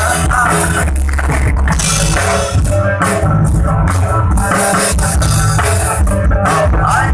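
Loud music with drums and a steady low beat.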